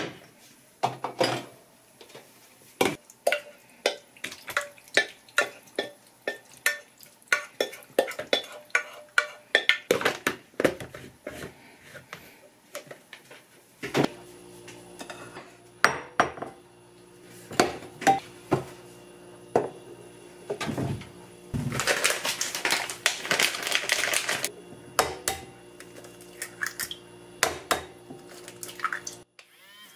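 A spoon or spatula clinking and scraping against a pot and dishes in quick, irregular knocks. About halfway through a steady hum comes in under more kitchenware clinks, with a few seconds of rushing noise later on.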